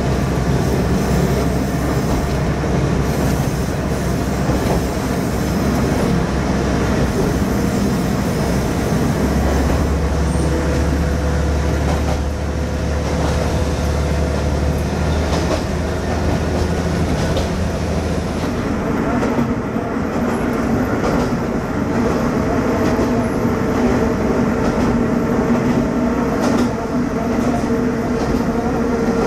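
Kanto Railway KiHa 532 diesel railcar running along the line, heard from inside the cab: the diesel engine's drone mixed with the noise of wheels on rails. About two-thirds of the way through, the low engine drone drops away and a steadier, higher hum carries on.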